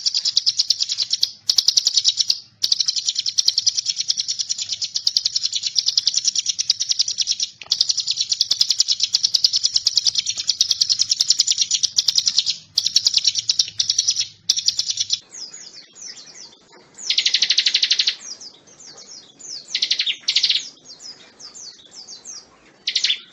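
Ciblek gunung, a prinia, singing long, very fast trills of high ticking notes with short breaks between them; after about 15 seconds the song changes to shorter separate bursts set a little lower.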